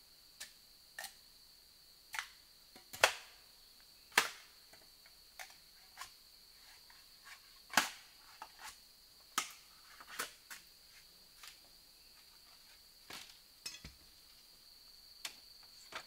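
Irregular sharp knocks and cracks of wood being handled, loudest about three, four and eight seconds in, over a steady high-pitched insect drone.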